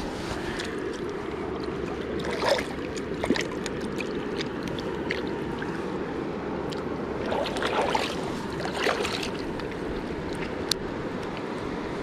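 Steady rush of river water with a few short splashes and knocks, and one sharp click near the end, as a caught catfish is put back into the river.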